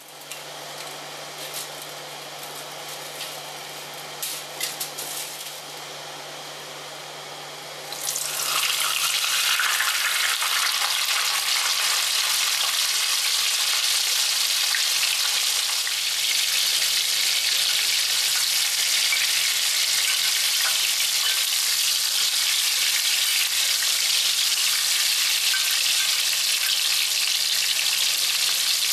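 Whole corn-starch-coated Tai snapper shallow-frying in hot oil, a steady sizzle. It starts quieter, then about eight seconds in jumps to a loud sizzle that holds.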